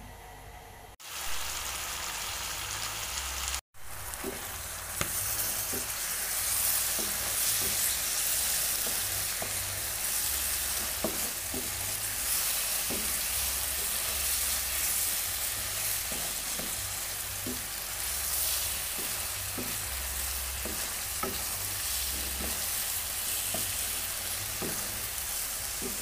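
Chicken wings sizzling in a sauce reduced to a thick, sticky glaze in a nonstick wok, stirred with a wooden spatula that taps and scrapes against the pan. The sound drops out briefly twice in the first few seconds, then the sizzle runs steadily.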